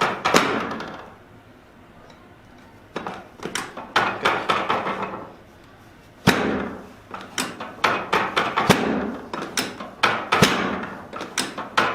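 Chiropractic adjusting table giving a series of sharp mechanical knocks and clacks as its sections are thrust and dropped during a spinal adjustment, with a strong knock about six seconds in and several more toward the end.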